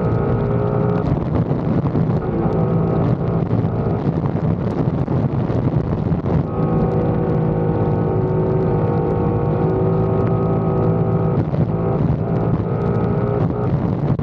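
Motorcycle engine running at a steady cruising speed while riding, its note holding a level pitch over a steady rushing noise. The higher part of the engine note drops away for a few seconds in the middle, then comes back.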